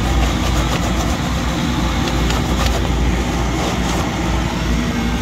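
Steady mechanical drone with a strong deep hum from the laser cutter's running equipment.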